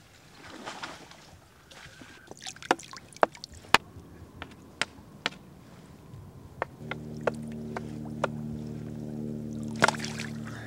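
Hockey sticks clacking against a puck and wet ice: a run of sharp, irregular cracks over a faint watery wash. A steady held chord of music comes in about seven seconds in.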